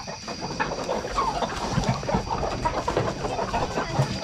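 A crowd of chickens clucking and fussing in a crowded crate, with scattered knocks and scuffles from the birds moving against each other and the box.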